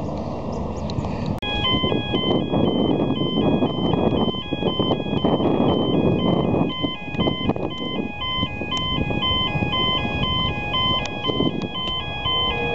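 An electronic beeping tune, short pure notes stepping between several pitches, starting abruptly about a second and a half in and repeating over and over, with a steady low rumble underneath.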